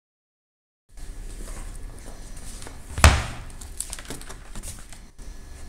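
Sketchbook paper being handled and a page turned: rustling with small clicks, and one louder rustle with a knock about three seconds in. The first second is dead silence.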